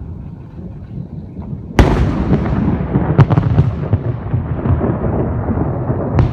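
Close thunder from a nearby lightning strike: a sudden sharp crack a little under two seconds in, then a loud rolling rumble with more crackles breaking through it.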